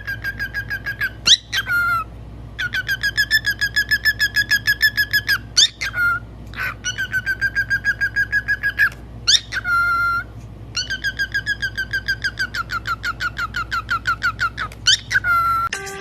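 A pet parrot whistling long runs of rapid, evenly repeated notes, about seven a second, broken by short single whistles.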